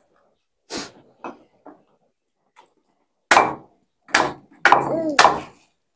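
Knife knocking and prying against coconut shell pieces on a wooden chopping board as the white flesh is dug out. Irregular sharp knocks: a few faint ones in the first two seconds, then louder ones from about three seconds in.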